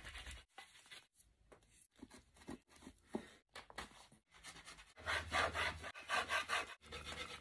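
Wooden sword blank being worked by hand: a few quiet, scattered scraping strokes. About five seconds in, it turns to louder, quick back-and-forth rubbing as the wood is ground on a flat stone slab to narrow the blade.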